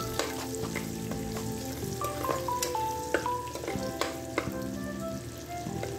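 Garlic sizzling in hot oil in a stainless steel pot, stirred with a metal spoon that clicks and scrapes against the pot again and again. Soft background music with a simple melody plays underneath.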